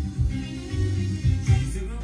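Music playing from a vinyl record on a Pioneer turntable, with a strong repeated bass line under the melody.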